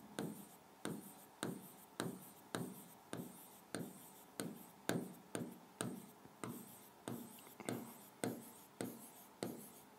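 Stylus tapping and sliding on an interactive whiteboard screen as small circles are drawn one after another: a steady run of short, light strokes, about two a second.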